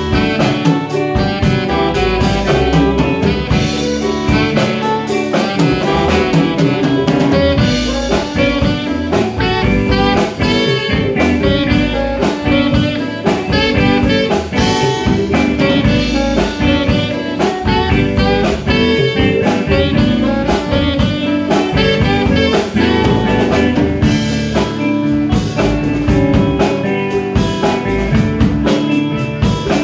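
Live instrumental jazz band playing: alto and tenor saxophones carrying the melody over drum kit, hand percussion, electric bass and electric guitar.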